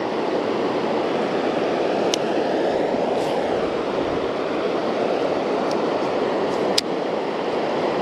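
Steady rush of creek water running over rocks, with a few small clicks about two, six and seven seconds in.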